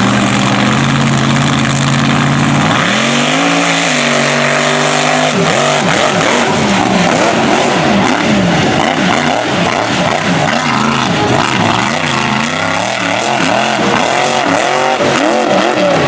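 Mega truck engine running at a steady low speed, then revving up as the truck launches. For the rest of the run it revs up and down again and again as the truck races through the mud course.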